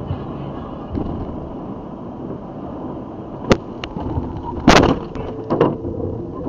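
Vehicle driving, with steady road and engine noise heard from inside the cab. A sharp click comes about three and a half seconds in, then a loud bang about a second later and a few more knocks.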